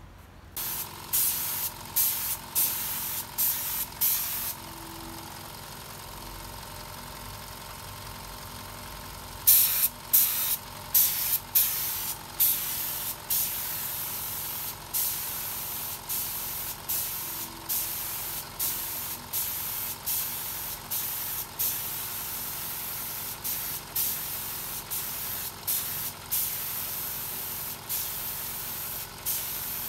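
Short hissing bursts of compressed air from a hand-held spray gun, roughly one a second, pausing for about five seconds after the first few. Under them runs the steady hum of an oil-free twin-head air compressor.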